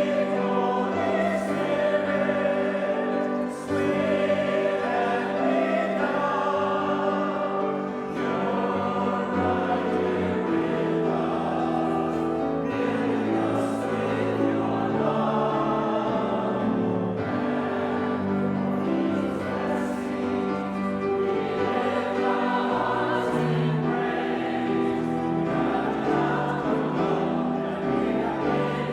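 Church choir singing a slow hymn with instrumental accompaniment, in long held notes.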